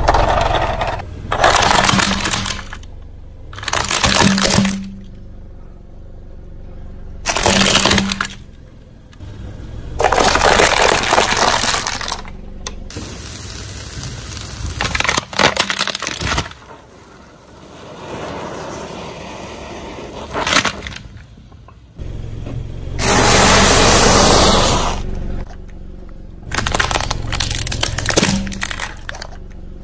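A car's tyres rolling over and crushing brittle objects: a run of crunching, cracking breaks, each lasting a second or two, over a low rumble.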